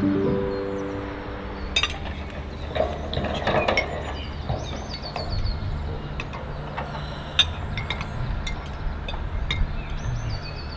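Forks and knives clinking and scraping on china plates during a meal at a café table, in many short irregular clicks. A music cue fades out in the first second.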